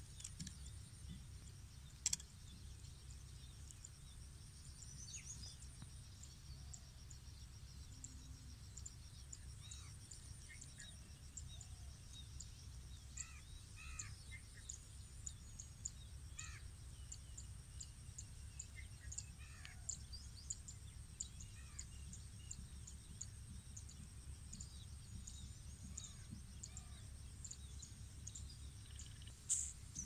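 Faint outdoor ambience: a low steady rumble with scattered small chirps, likely distant birds, and a thin steady high tone. A sharp click about two seconds in and another near the end.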